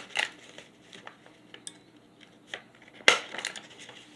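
A few sharp clicks and knocks from handling a stapler and a stack of stapled paper mini comics, the loudest about three seconds in with a few smaller clicks just after.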